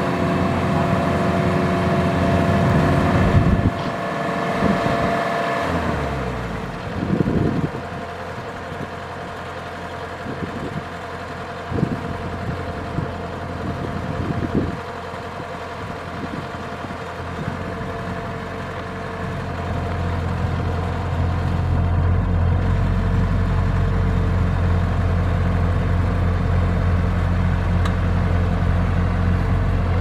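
Kubota DC-105X combine harvester running, its diesel engine and threshing machinery making a steady mechanical drone with a few knocks in the first half. About two-thirds of the way through, a deeper and louder engine drone sets in and holds.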